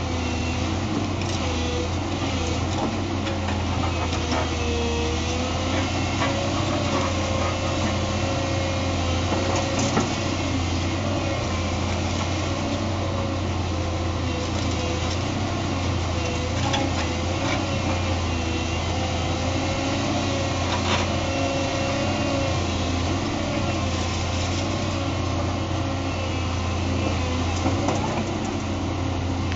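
Case CX240 excavator's diesel engine running steadily, with a wavering whine, as its hydraulic crusher jaws work concrete rubble; a few short sharp cracks.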